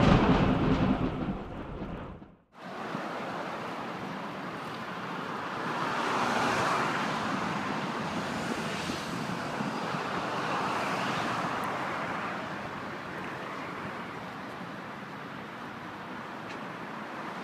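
A loud low rumble fades out over the first two seconds and breaks off into a moment of silence. Then comes steady street traffic noise, swelling twice as vehicles pass.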